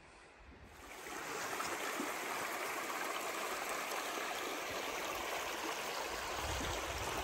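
Flowing water of a stream: a steady, even rush that comes up about a second in and then holds level.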